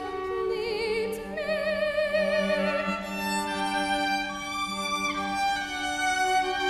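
Violin, viola and cello holding slow, sustained notes together, with a woman's classical singing voice holding notes with a wide vibrato over them for the first three seconds or so.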